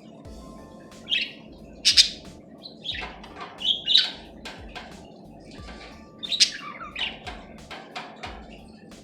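Budgerigars chirping and chattering in short, sharp, irregular calls, with louder chirps about two, four and six and a half seconds in.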